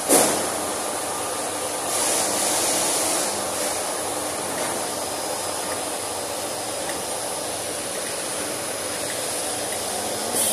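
Steady machine noise from a large pneumatic heat press and its surroundings. A sudden loud burst comes right at the start, and about two seconds in there is a hiss lasting just over a second, with another burst at the very end.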